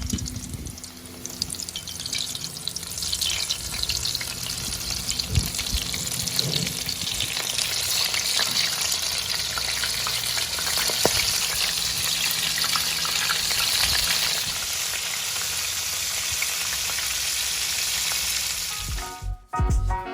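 Oysters frying in hot oil: a steady sizzle with fine crackling that builds over the first few seconds and holds, then cuts off suddenly near the end.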